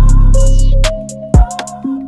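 Hip-hop instrumental background music with a steady beat and melody; the bass and kick drop out about halfway through, leaving the melody and a few drum hits.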